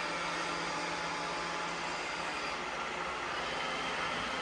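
iRobot Roomba 655 robot vacuum running on a replacement battery, its vacuum motor and brushes making a steady whirring hum that grows brighter and hissier about halfway through.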